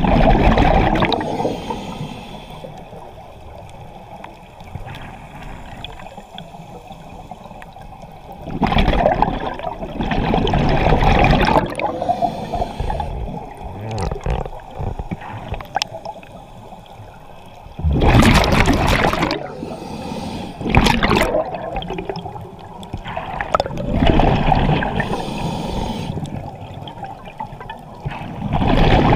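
Scuba regulator breathing underwater: exhaled air bubbles out of the regulator in loud gurgling, rushing bursts several seconds apart, with quieter watery sound between breaths.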